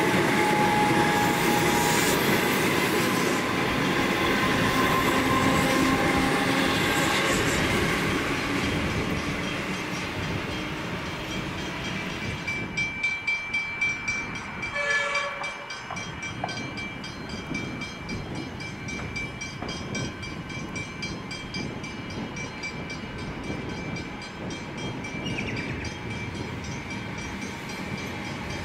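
A six-car electric suburban train passes close with a loud rumble and steady motor whine, fading as it runs away over about ten seconds. After a break, a Comeng electric suburban train runs toward the listener with a quieter, steady rumble, with a short tone, like a horn, about halfway through.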